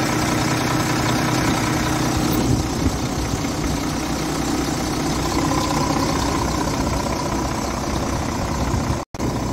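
Scania R450's 13-litre inline-six diesel engine idling steadily. There is a small knock about three seconds in and a brief break in the sound near the end.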